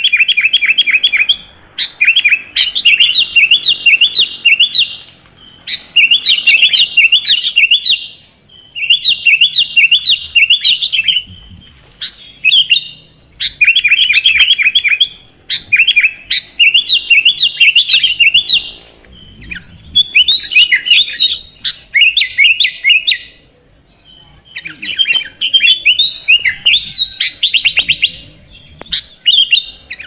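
Sooty-headed bulbul song: about a dozen phrases of quick, sharp chattering notes, each lasting one to three seconds, following one another with short pauses.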